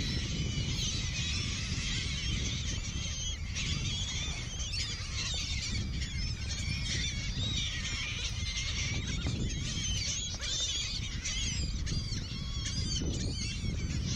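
A large flock of gulls calling all at once, many short, high, overlapping calls, as the birds wheel and dive over a school of feeding fish. A steady low rumble runs underneath.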